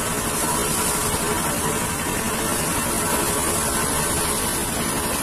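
Diesel engines of a tugboat running steadily, a constant even drone with a faint hum.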